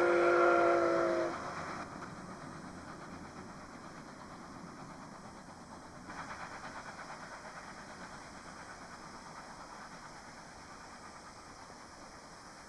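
Steam locomotive whistle sounding a held chord that cuts off about a second in, followed by the much quieter running noise of the passing steam train, which slowly fades away.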